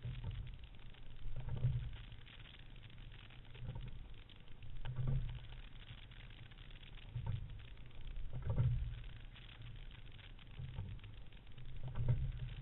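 Water rushing and slapping along a rowing single scull, with low thuds and swells that repeat with each stroke of the oars: pairs about a second and a half apart, the cycle coming round roughly every three and a half seconds.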